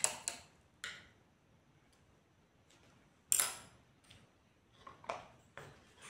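Small paint pots being handled on a stone countertop: a few light taps and clicks of small hard objects, the sharpest about three seconds in.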